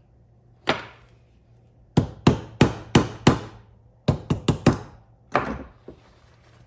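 Hammer strikes, about eleven in all: a single hit, a quick run of five, another run of four, then one last hit.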